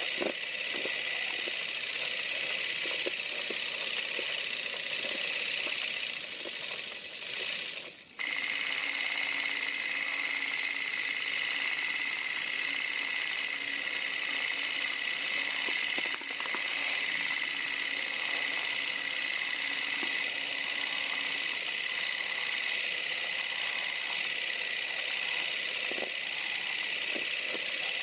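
Steady hiss and whir of old film noise, with scattered faint clicks. It dips briefly about a quarter of the way in, and a faint low hum runs through the middle part.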